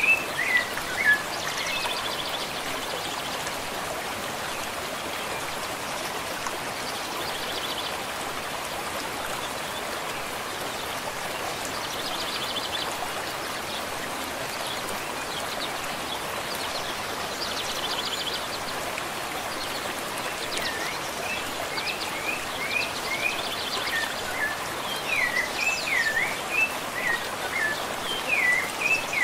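Rufous-bellied thrush song: quick runs of short whistled notes that slide up and down, heard in the first second and again through the last eight seconds or so, over a steady wash of running water like a stream. Faint short trills recur about every five seconds in the stretch between.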